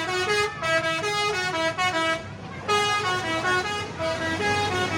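Indonesian 'telolet' bus horn, a multi-tone musical air horn, playing a quick tune of short notes that step up and down in pitch, with brief breaks between phrases.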